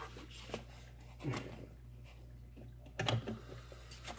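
Camera handling noise: scattered knocks and bumps as the camera is set down and shifted, two louder thumps about a second in and near three seconds, over a steady low hum.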